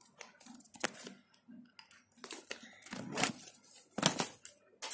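Paper rustling and crinkling with scattered knocks and scrapes, from a folded paper rocket being handled and thrown and the phone that records it being jostled. The sharpest knocks come about a second in, about three seconds in and about four seconds in.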